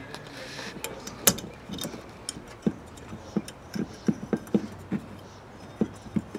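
Irregular small clicks and knocks of an old porch light fixture's mounting base being worked loose by hand, about a dozen, with a sharper click about a second in.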